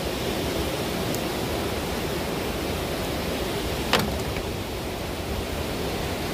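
Steady rush of surf breaking on the beach, with one sharp click just before four seconds in.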